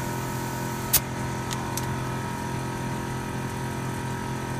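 Kleinn JK-OBA onboard air compressor running with a steady hum. There is one sharp click about a second in.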